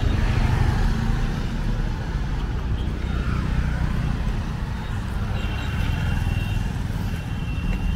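Busy street traffic: motor vehicles running and passing close by, with a brief high steady tone about five and a half seconds in.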